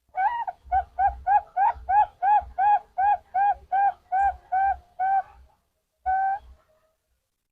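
Zebra dove (perkutut) singing: a rapid run of about fourteen short cooing notes, roughly three a second and dropping a little in pitch, ending with one longer drawn-out coo after a brief pause.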